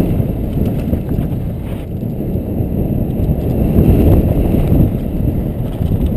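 Mountain bike rolling fast down a dirt singletrack, heard from a helmet-mounted camera: a steady low rumble of tyres on dirt, bike rattle and wind buffeting the microphone, loudest about four seconds in.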